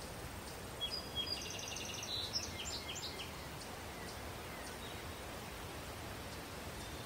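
Birds chirping and trilling over a steady outdoor background hiss, the calls clustered in the first few seconds.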